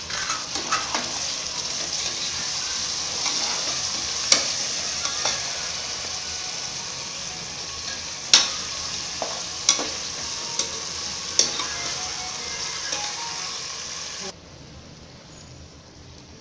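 Chopped tomatoes sizzling in the oily masala in an aluminium pressure cooker while a steel spoon stirs them, clinking sharply against the pot several times. The sizzle cuts off suddenly near the end.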